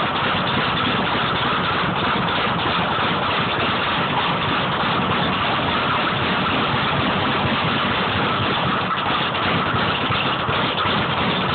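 Leather speed bag being punched continuously, rattling against its rebound platform in a fast, unbroken drumming rhythm.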